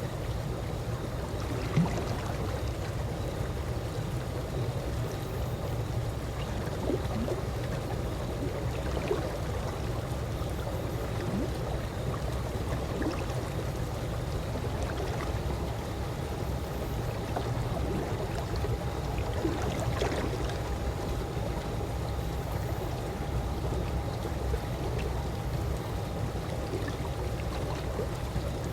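Calm swimming-pool water lapping gently, a steady low wash with scattered small plinks and splashes, over a faint steady hum.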